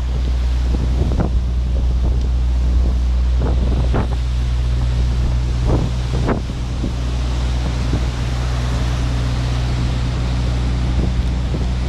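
Hurricane winds buffeting the microphone: a loud, steady, deep rumble with hiss over it, broken by a few short, sharp gust or knock sounds around the middle.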